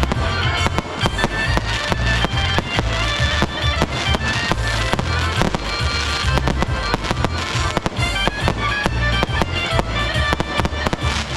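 Fireworks going off in a rapid, continuous barrage of bangs and crackles, over loud music with a pulsing bass beat.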